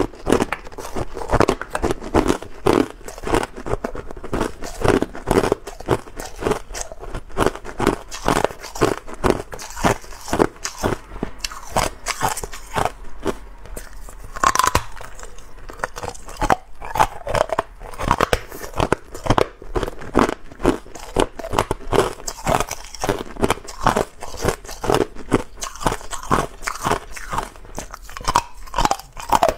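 Hard clear ice being bitten and chewed close to a lapel microphone: a dense, continuous run of sharp crunches and cracks, several a second.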